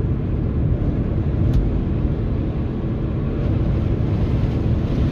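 Steady low rumble of a car driving on a snow-covered road, heard from inside the cabin: engine and brand-new snow tyres on the snowy surface. A single faint tick comes about a second and a half in.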